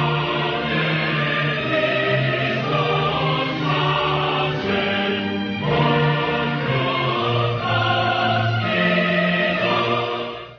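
Background music of a choir singing long held chords that change every second or so, dropping away right at the end.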